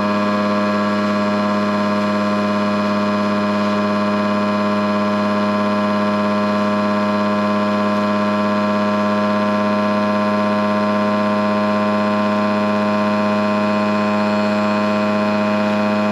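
Small electric motor of a bench-top piston ring gap filer running, a steady, unchanging hum.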